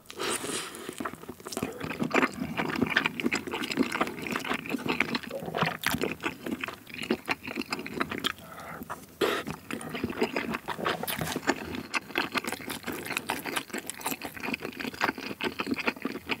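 Close-miked chewing of spicy Korean fish cake (eomuk) in sauce: soft, wet mouth sounds with many small irregular clicks and smacks.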